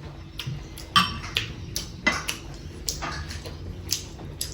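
Irregular light clinks and scrapes of cutlery on a plate during a meal, about eight in all, the sharpest about a second in.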